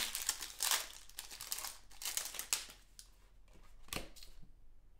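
Foil wrapper of a Panini Mosaic basketball card pack torn open and crinkled by hand, a run of rustling rips over the first three seconds, then a single sharp click about four seconds in.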